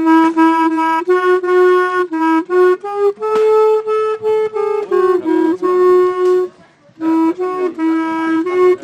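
A single clarinet playing a slow melody of held notes. It stops for about half a second roughly two-thirds of the way through, then starts again.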